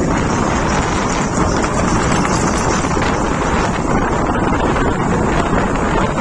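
Steady wind buffeting the microphone on a moving Bajaj Pulsar NS motorcycle, with the bike's running and road noise blended underneath.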